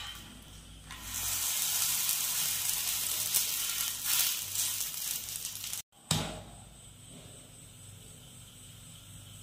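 A poli (sweet stuffed flatbread) sizzling in oil on a hot dosa tawa just after being flipped with a steel spatula. The sizzle is loud for about five seconds, breaks off abruptly, and then goes on much quieter.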